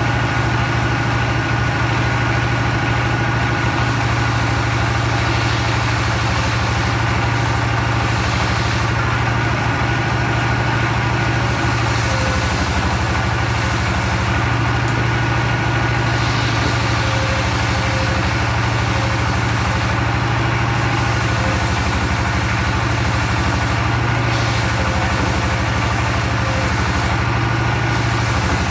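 Engine driving a log circular-saw mill, running steadily at constant speed with an even hum.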